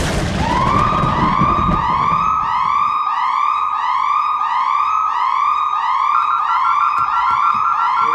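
Home security alarm siren sounding, a rising-and-falling yelp repeating about twice a second, with a quick beeping joining in about six seconds in.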